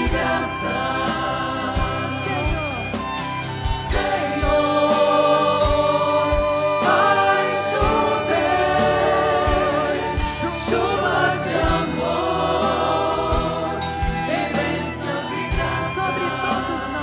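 A choir and congregation singing a devotional hymn together, with a steady low beat about once a second.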